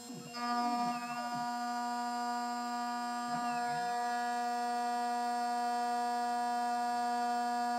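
CNC milling spindle running with a steady whine while the cutter takes a shallow facing pass over an aluminium block. The whine gains extra higher tones about a third of a second in, with brief sweeping tones about a second in and again about three and a half seconds in.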